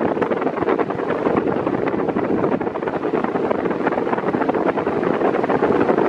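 Ventisol Turbo 6 50 cm six-blade fan running at its minimum speed: a steady rush of air, with the airflow buffeting the microphone.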